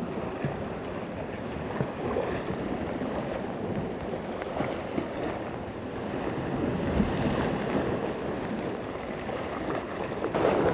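Sea surf washing against a rocky shore, a steady rush of water, with wind buffeting the microphone.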